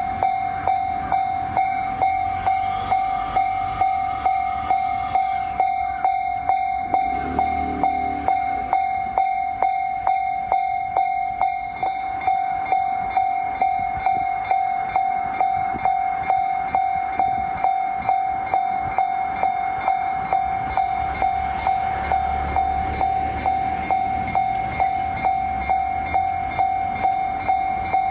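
Japanese level-crossing warning bell ringing steadily, an electronic two-tone ding repeating about twice a second.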